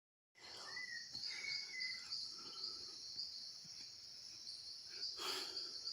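Steady, shrill, pulsing insect chorus, with a few short bird whistles in the first two seconds. A brief rustle or knock comes about five seconds in.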